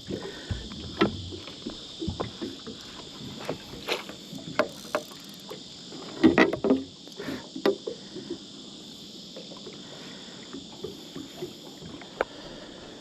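Scattered knocks, clatters and splashes of a mulloway being netted and brought into a small boat, with a louder cluster of knocks about six seconds in, over a steady high drone of insects.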